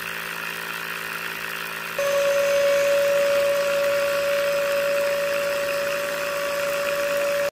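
Small DC gear motors of a toy borewell drilling rig running, a steady electric whine as the plastic-pipe drill bit turns in the muddy hole. About two seconds in, a louder, steady higher-pitched hum joins and the sound gets louder.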